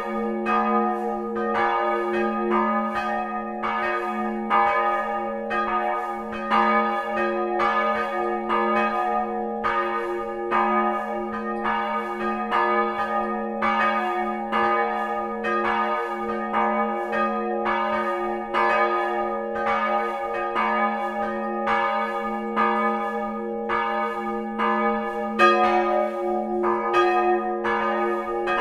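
Church bells ringing in a steady, unbroken peal, about one to two strokes a second, their tones humming on between strokes.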